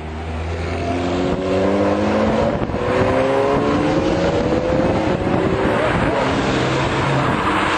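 A car engine accelerating, its pitch rising steadily over several seconds, over a loud rush of road and wind noise.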